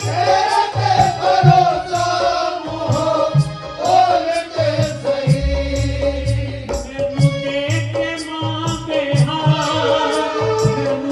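Hindu devotional bhajan of a Mata ki Chowki: a singer's voice gliding over steady held chords, with a drum and a rattle keeping a regular beat.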